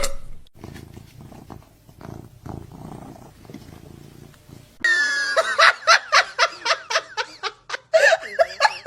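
A cat purring softly, then a louder run of short, quick, high-pitched vocal sounds, about three or four a second, over the second half.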